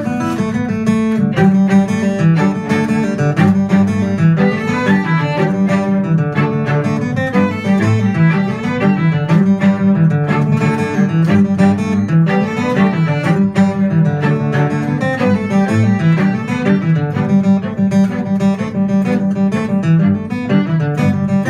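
Acoustic guitar and string quartet (two violins, viola and cello) playing an Irish traditional-style tune live, the guitar's plucked notes keeping a steady pulse under the bowed strings and a moving cello line.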